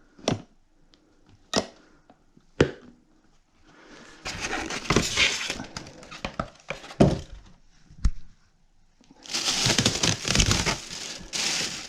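Packaging being handled during an unboxing: a few sharp knocks, then loud rustling and crackling as wrapping material is pulled and crushed.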